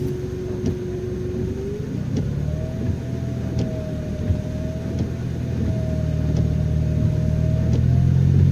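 Car engine and road noise heard from inside the car, getting louder toward the end as it gathers speed, with a faint whine that steps up in pitch about two seconds in. A faint tick repeats about every second and a half.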